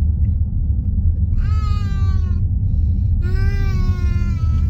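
A child's voice holding two long, drawn-out notes, each about a second long, the second a little lower and falling slightly, over the steady low rumble of a car driving.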